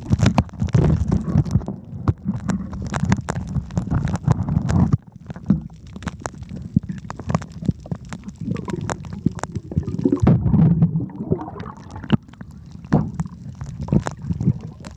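Underwater sound of the sea picked up by a submerged camera: an uneven, muffled low rumble of moving water, scattered with many sharp clicks and knocks, easing off for a few seconds in the middle.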